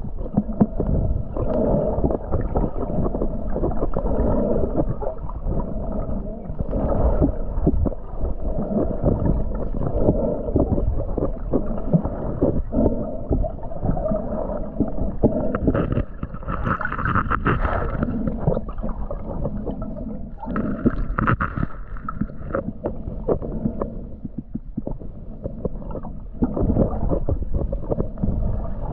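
Muffled underwater sound picked up by a GoPro in its waterproof housing: a steady low rush of moving water, with frequent small knocks and bubbling as the camera moves with the swimmers. Two brief, brighter muffled sounds come in partway through.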